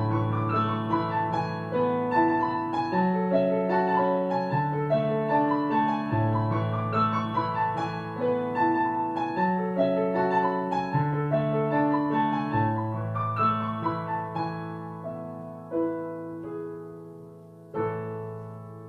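Solo piano playing a gentle, flowing melody over rolling broken chords. It slows and thins toward the end, with one last chord struck near the end and left ringing out.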